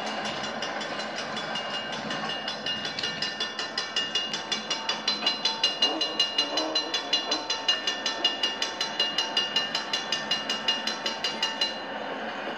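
Model train running on its track: a steady hiss with a rapid, even clicking, about five clicks a second, that grows louder and then cuts off suddenly near the end.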